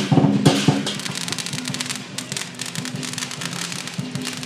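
Dragon-dance percussion, heavy drum and cymbal strokes, for about the first second, then a string of firecrackers crackling in fast, dense pops through the rest.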